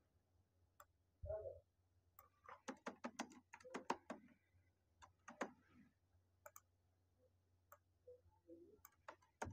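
Computer keyboard typing, faint: quick runs of key clicks in two bursts, then a few scattered single key presses. A soft low thump sounds just over a second in.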